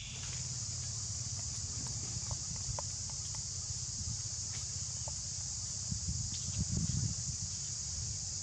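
Steady high-pitched drone of insects, with a low rumble underneath that swells about two-thirds of the way through, and scattered faint clicks.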